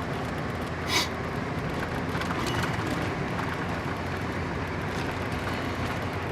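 Steady road drone of a pickup truck driving, heard from inside the cab: engine and tyre noise, with a brief hiss about a second in.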